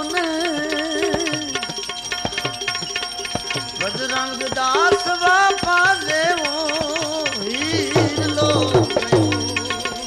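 Live devotional bhajan music: a wavering, ornamented melody that slides and shakes in pitch, over a steady stream of tabla strokes.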